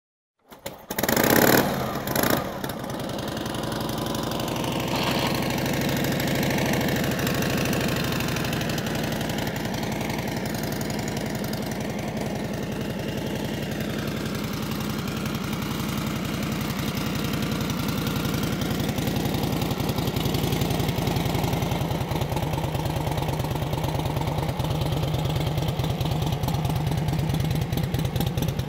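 A 1938 Harley-Davidson EL Knucklehead's overhead-valve V-twin engine cold-starting. It fires with a loud burst about a second in, then settles into a steady idle whose pitch lifts slightly near the end.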